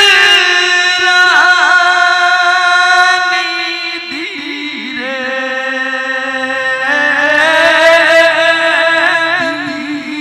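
A man singing long, wavering, ornamented notes of a slow nirgun devotional song, with harmonium chords held steadily underneath; the chord shifts lower about halfway through.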